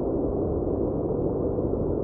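Steady white-noise track with a deep, muffled hiss, even and unchanging, with no hiss in the upper range.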